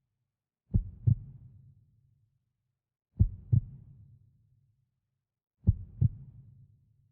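Heartbeat sound effect: three slow lub-dub double thumps, about two and a half seconds apart, each pair fading away.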